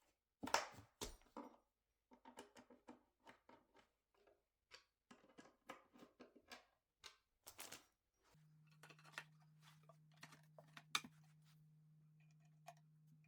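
Flat-pack furniture parts being handled and fitted together by hand: a sharp knock about half a second in, then scattered light clicks, taps and scrapes. A faint steady hum joins from about eight seconds.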